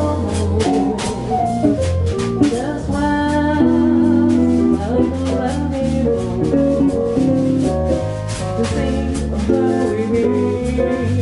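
A small jazz band playing live: a woman singing over piano, guitar, bass and a drum kit, with the cymbals keeping a steady swing time.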